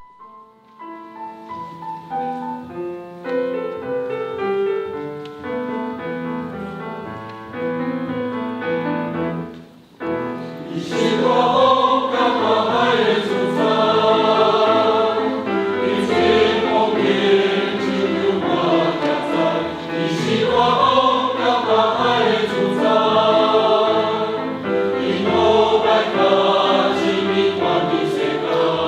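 Church choir singing a hymn with instrumental accompaniment, after an instrumental introduction of about ten seconds.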